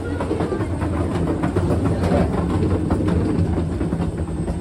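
Steady low machinery hum around a parked airliner during boarding, with scattered clicks and knocks of footsteps and bags.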